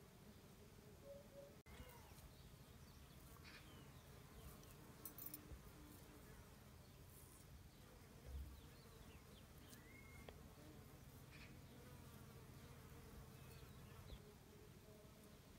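Faint, steady buzzing of a flying insect, with a few faint high chirps and light clicks.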